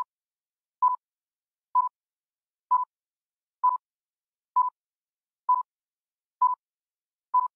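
Electronic countdown timer beeping: a short single-pitched beep about once a second, with silence between the beeps.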